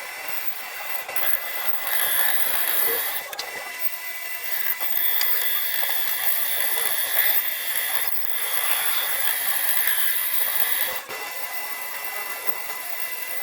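A power tool running with a steady high whine over a hiss, swelling and easing in loudness every few seconds as it works.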